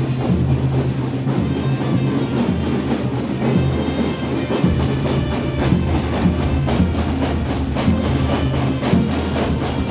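Music with steady drumming and repeated percussion strikes over a low sustained drone.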